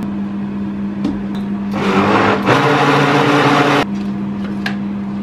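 Countertop blender running in one short burst of about two seconds, mixing banana cake batter with freshly added vegetable oil, picking up speed about halfway through before cutting off. A steady low hum sits underneath.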